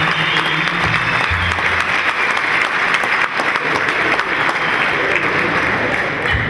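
Audience applauding, a dense steady clapping, with a few low held notes from the band underneath in the first two seconds.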